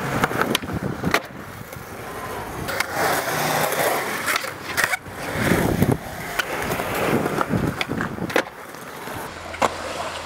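Skateboard wheels rolling on concrete, broken by a series of sharp clacks as the board is popped and landed.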